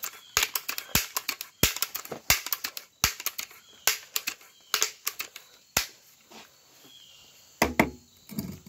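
Irregular sharp clicks and small rattles of a BB gun being loaded and handled, several a second at first and then thinning out; near the end a rustling bump as the gun is moved.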